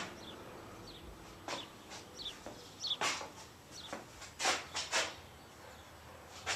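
Faint short bird chirps scattered through a quiet room, with a few soft knocks about three, four and a half and five seconds in.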